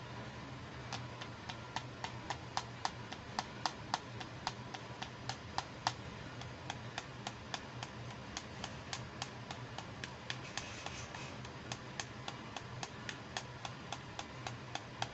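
A quick, uneven run of sharp clicks and taps, about three a second, from small hard-plastic toy accessories being handled and clicked together.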